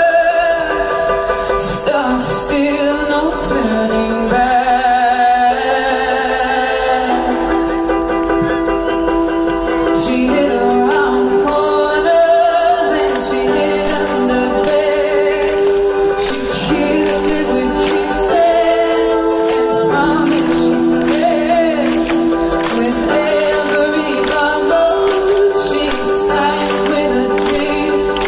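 Live band music with a female lead singer holding long notes with vibrato over steady, regular percussion, recorded from the crowd.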